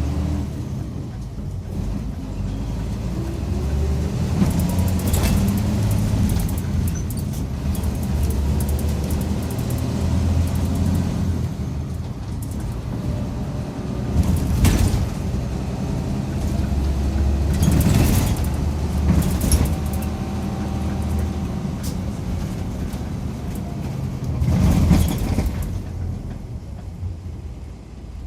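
Interior running sound of a Mitsubishi Fuso Aero Midi MK bus: the diesel engine pulling as the bus drives, its pitch rising as it picks up speed near the start and shifting with the gears. A few brief louder noises come through the cabin, about four times.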